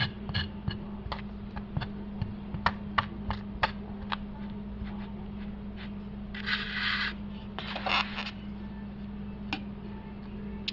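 A sharp knife blade scraping along raw pork chops: irregular sharp ticks and clicks, with a couple of longer rasping scrape strokes in the second half, over a steady low hum.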